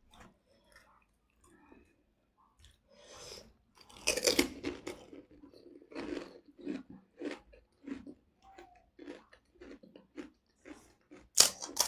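Close-miked eating sounds: irregular crunching and chewing of food, with loud crunches about four seconds in and again near the end.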